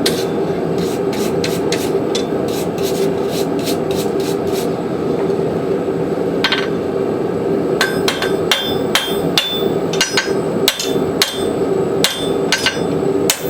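Hand hammer blows on a hot horse hoof rasp against an anvil, about two or three a second, drawing the steel down. The hammering pauses for a couple of seconds past the middle, then resumes with brighter ringing strikes, all over a steady hum.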